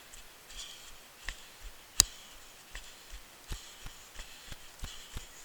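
Running footsteps on a trail, settling into an even beat of about three footfalls a second from partway in. A single sharp click about two seconds in is the loudest sound.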